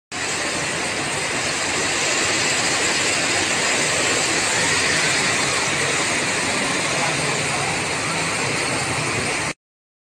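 Steady rush of heavy rain and flowing floodwater, cutting off suddenly near the end.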